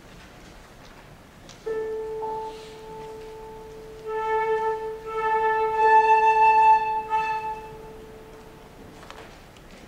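A single piano note struck and left to ring, then a flute playing a long held note at the same pitch for about four seconds, as the flutist tunes to the piano before the performance.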